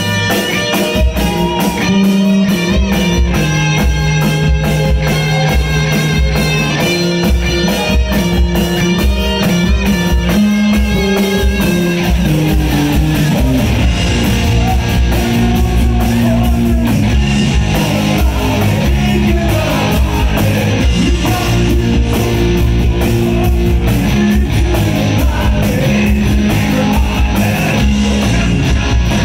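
Live rock band playing loud through a PA: distorted electric guitars, bass guitar and a drum kit keeping a steady beat. The opening stretch of held chords gives way to a busier passage about halfway through.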